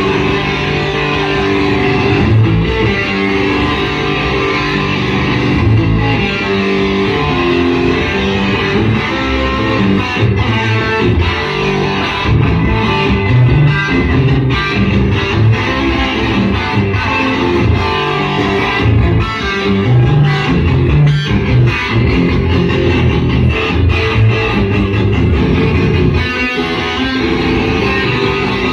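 Electric guitar playing heavy riffs live through an overdriven amplifier, with many short, sharp picked attacks.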